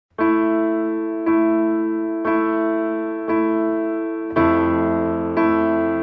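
Background music: a keyboard plays chords, one struck about once a second and fading until the next. About four seconds in, the chord changes and sounds fuller and lower.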